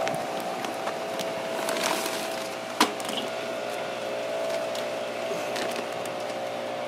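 Light crackling and clicking as charcoal briquettes are added by hand to the burning coals of a kettle grill, with one sharp click about three seconds in. A steady tone runs underneath.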